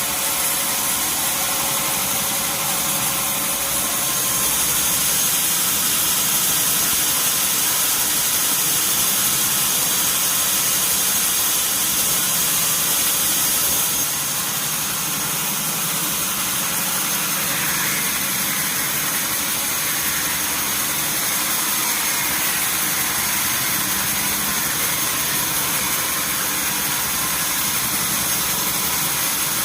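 Sawmill machinery running steadily, a loud dense mechanical noise with a slight drop in level about halfway through.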